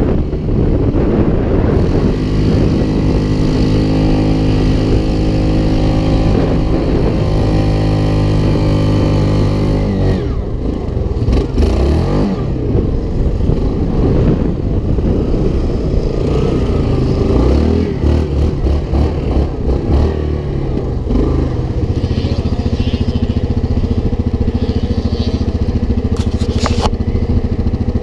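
Off-road vehicle engine running: a steady engine note for the first several seconds, then a changing, uneven stretch with a few brief knocks, settling back to a steady note for the last several seconds.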